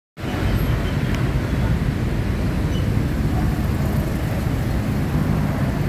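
Busy city road traffic: cars and motorbikes running by, a steady rumble with no break.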